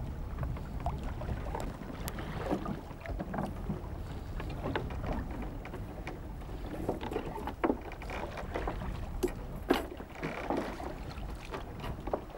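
Sea water sloshing and splashing against a small wooden fishing boat's hull, with wind rumbling on the microphone and a few sharp knocks, the loudest about eight and ten seconds in.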